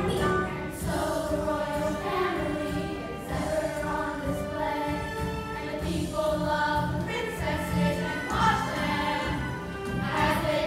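A children's chorus singing together with musical accompaniment.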